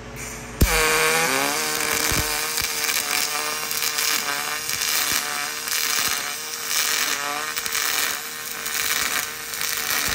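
YesWelder YWM-211P pulse MIG welder running an arc on aluminum: a steady buzz with a pitched hum, starting with a sharp crack about half a second in as the arc strikes and cutting off suddenly near the end as the weld stops.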